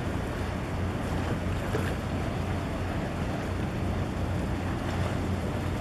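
Low steady engine drone from harbour tugboats pushing a large container ship off its berth, heard across the water with wind noise on the microphone.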